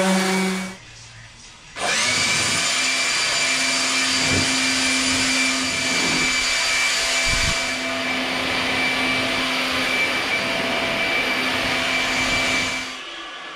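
An electric orbital sander runs on the bare steel of the quarter panel and stops within the first second. After a short pause, a cordless leaf blower starts and runs steadily, a rush of air with a high whine, then cuts off near the end.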